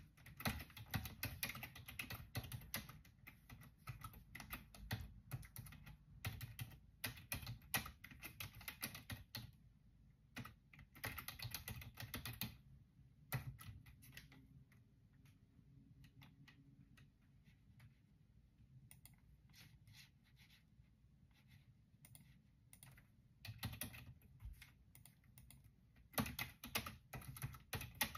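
Typing on a computer keyboard: fast runs of keystrokes, then a stretch of only scattered clicks about halfway through before the typing picks up again near the end.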